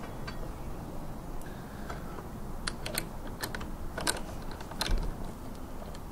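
Irregular small clicks and taps, about eight of them, the loudest about five seconds in, from hand work on a motorcycle brake caliper being seated over the disc, over a steady low background.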